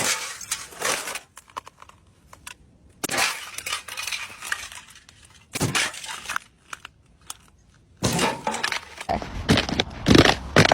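Ice cracking and crunching as it is stepped on: several bursts of sharp cracks and tinkling breakage, with a longer, denser run starting about eight seconds in.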